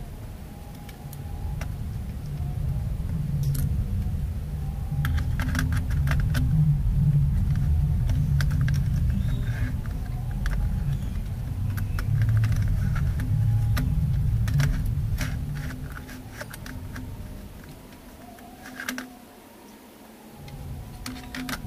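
Scattered light plastic and metal clicks and taps as a laptop's slim optical drive is handled and slid into its bay, over a low rumble that fades out near the end.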